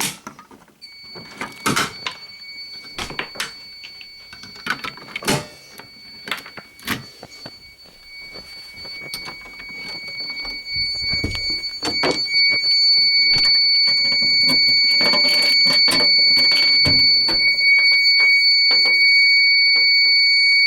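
Fire alarm sounding a steady high-pitched tone after a manual pull station is pulled, with sharp knocks and clicks of handling through it. The tone gets louder about halfway through and cuts off abruptly at the end.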